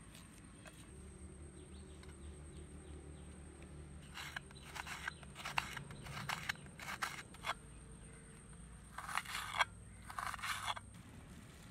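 Kitchen knife cutting through red onion against a terracotta plate. Separate crisp cuts start about four seconds in, and two quicker bursts of chopping come near the end.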